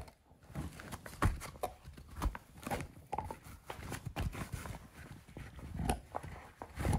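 A dog gnawing a dried lamb bone: irregular crunches and clicks of teeth on bone, one of the louder crunches about a second in.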